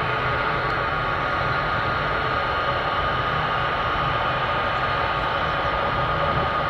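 Boeing C-17 Globemaster III's four turbofan jet engines running steadily at low taxi power, a constant whine over a low rumble.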